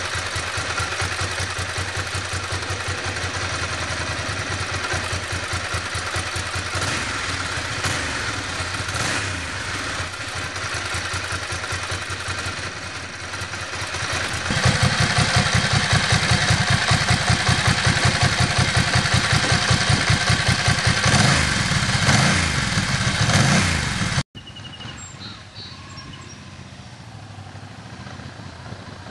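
Ducati S2R 1000's air-cooled L-twin running on its stock silencers: a steady, pulsing idle, then louder from about halfway, with the revs rising and falling a few times. Near the end it cuts off suddenly and gives way to much quieter outdoor sound.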